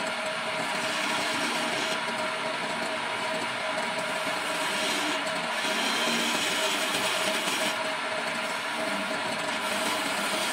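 Homemade wood lathe running with a steady whine while a hand-held chisel cuts a spinning wooden stair baluster, the scraping of the cut coming and going as the tool is worked along the wood.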